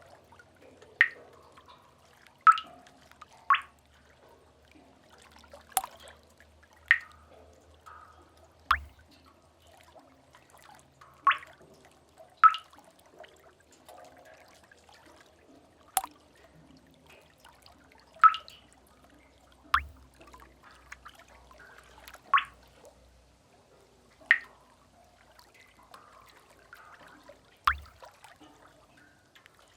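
Sea-cave ambience: single water drops falling into pooled water, about one every second or two at irregular intervals, each a short plink. Underneath is a faint low wash of distant waves.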